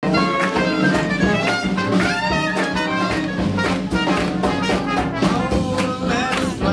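Swing jazz band playing an up-tempo tune: horn lines over a steady beat.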